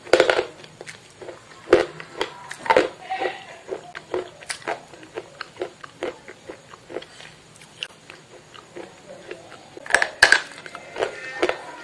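Close-up biting and chewing of something hard and brittle: sharp crunching cracks scattered throughout, with the loudest cluster of bites about ten seconds in.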